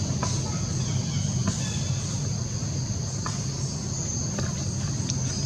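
Steady high-pitched insect drone over a constant low rumble, with a few faint short clicks.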